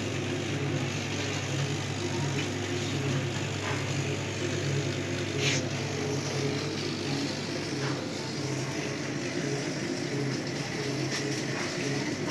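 Steady machine hum of a running 6040 CO2 laser cutting machine and its fans and pumps, with a few faint clicks; the low hum eases near the end.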